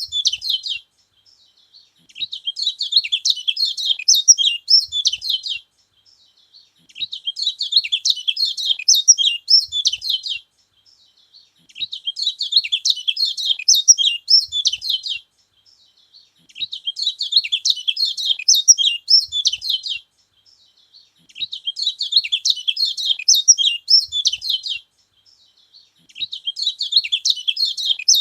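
Kecial kuning (a white-eye songbird) singing in repeated bursts of rapid, high-pitched chattering notes, each phrase about three and a half seconds long with a short pause between, about six phrases in all.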